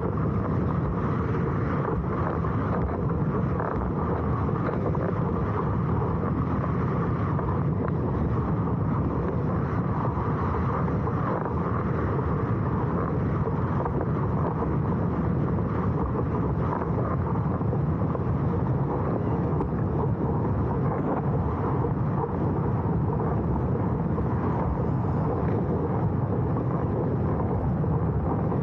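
Strong wind buffeting the microphone in a steady low rush, mixed with the hiss and slap of a windsurf board skimming fast over choppy water.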